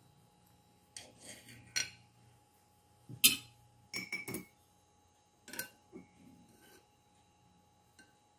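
Serrated knife sawing through a glazed cake and knocking against a ribbed glass cake plate: a few sharp glassy clinks with short scraping strokes between, the loudest about three seconds in.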